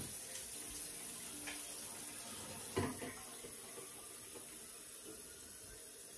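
Kitchen tap running in a steady stream into the sink, with a single knock about three seconds in.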